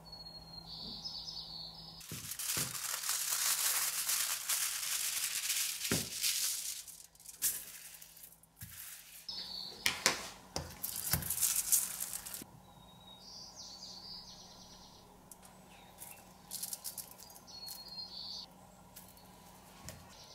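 Thin aluminium kitchen foil rustling and crinkling as a sheet is unrolled and spread on a table, with sharper crackles around ten to twelve seconds in. After that come quieter, intermittent rustles as the sheet is handled, with a few faint high chirps.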